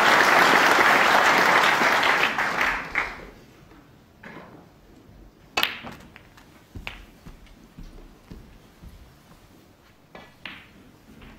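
Audience applause dies away over the first three seconds. Then comes the quiet of a snooker arena, broken by a few sharp clicks of snooker balls: the cue tip striking the cue ball and ball hitting ball as the black is potted.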